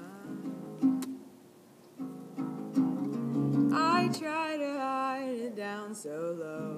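Ukulele picked and strummed in a song intro. Just past halfway, a voice joins over it with a wavering wordless melody.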